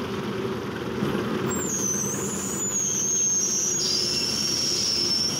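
Engine of a recovery crane running steadily while it hoists a crashed car on its cable, with a thin, wavering high-pitched squeal coming in about a second and a half in.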